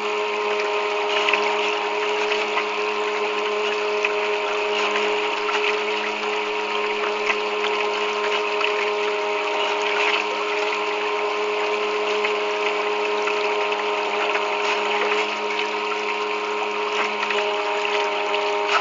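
A homemade bait boat's motor runs at a steady hum, heard close up from a camera mounted on the boat. Water rushes and splashes against the hull.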